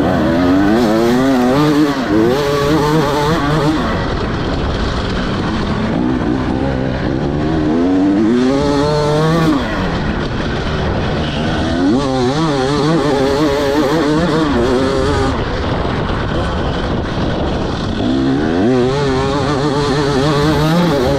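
2024 KTM 300 XC-W's single-cylinder two-stroke engine through an Akrapovic slip-on exhaust, revving up and down continuously as the dirt bike is ridden hard off-road. The pitch keeps wavering with the throttle, and climbs steeply a little before the middle and again near the end.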